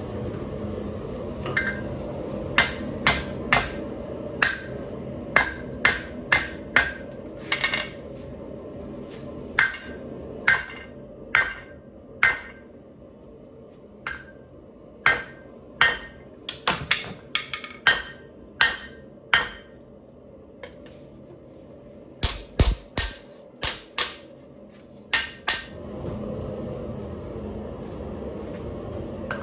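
Hand hammer striking a bar of 5160 steel on an anvil to forge a bend, in irregular clusters of blows with short pauses; some blows leave a brief high metallic ring. Under the blows the forge burner runs steadily.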